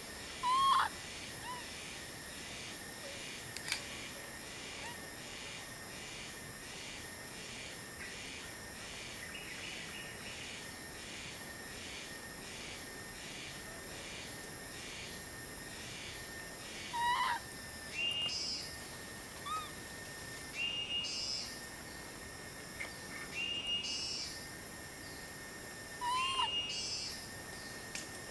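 A series of short, high, arching animal calls: one about a second in, then a run of them in the last third. They sound over a steady, evenly pulsing insect chorus.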